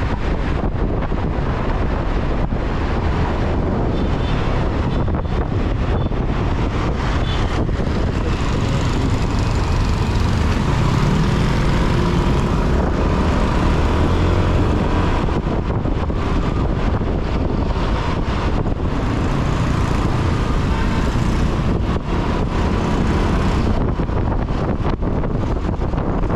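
Wind on a GoPro Hero 10's microphone and road traffic during a motorcycle ride through city streets: a steady, loud noise with a low rumble that swells and fades about halfway through.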